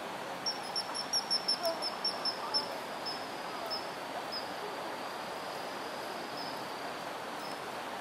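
Common kingfisher calling: a quick run of about a dozen high, thin piping notes, then slower single notes that grow fainter.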